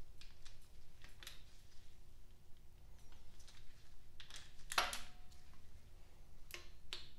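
Scattered light clicks and metallic ticks of a socket and torque wrench being fitted to and working the timing chain tensioner bolts on a Datsun L28 straight-six engine, with a sharper click about five seconds in.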